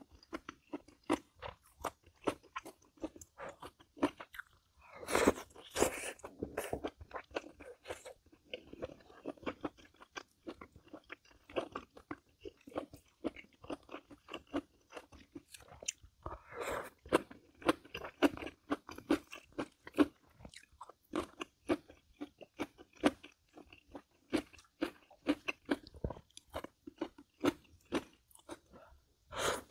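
A person chewing and crunching food close to the microphone, as in a mukbang: a steady run of small wet mouth clicks, with louder crunchy bites about five seconds in, around seventeen seconds in, and at the end.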